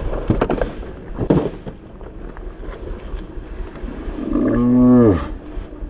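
A motorcycle going down on a muddy track: a few sharp knocks and scrapes in the first second or so. About four and a half seconds in comes a loud drawn-out yell of about a second that drops in pitch at the end.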